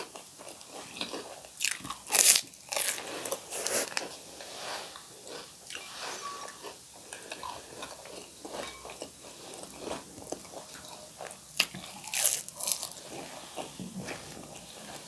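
Pani puri being eaten: crisp, hollow puri shells bitten and crunched, with chewing in between. The loudest crunches come about two seconds in and again a few seconds before the end.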